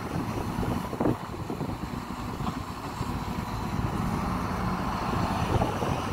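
Hidromek 230LC hydraulic excavator's diesel engine running steadily as the machine swings, dumps its bucket and swings back, with a single knock about a second in.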